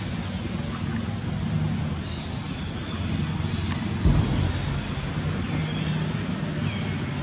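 Steady low motor rumble, with faint short high chirps over it and one dull knock about four seconds in.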